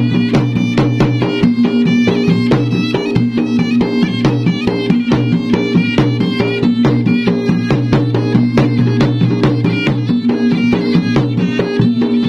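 Traditional Makassar–Bugis gendang drums beaten in a fast, dense, driving rhythm, with a shrill reed pipe playing a wavering melody over them.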